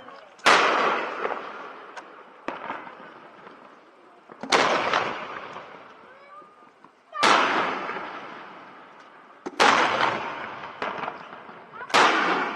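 Aerial firework shells bursting: five loud booms about two and a half seconds apart, each followed by an echo that fades out over a second or two, with a few smaller pops in between.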